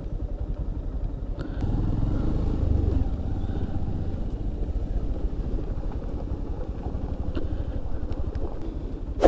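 Motorcycle engine running at low speed on a rough dirt track, getting louder for about a second around two seconds in. A single sharp knock right at the end.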